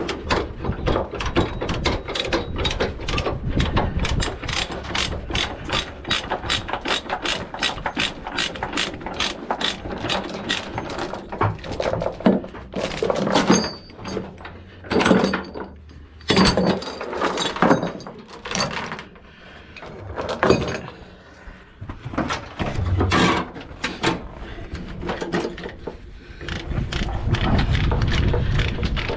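A ratchet chain binder being cranked on a trailer's tie-down chain: rapid, even ratchet clicking for the first dozen seconds or so. It gives way to irregular clanks and scrapes of chain and hooks, and a steady low rumble comes up near the end.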